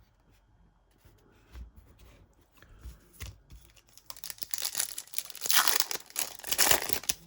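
A foil trading card pack wrapper being torn open and crinkled, starting about four seconds in after a few light handling clicks.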